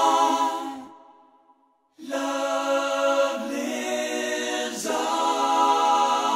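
Music with sustained choir-like sung chords: a held chord fades away, there is about a second of silence, then a new held chord begins and changes nearly three seconds later.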